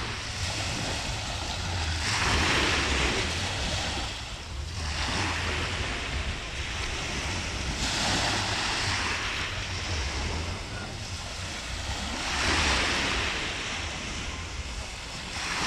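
Small sea waves breaking and washing up a sandy shore, a hissing rush swelling every few seconds as each one comes in. A low wind rumble on the microphone lies under it.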